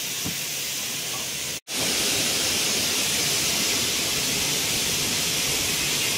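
Steady, even hiss that drops out for an instant about a second and a half in, then carries on slightly louder.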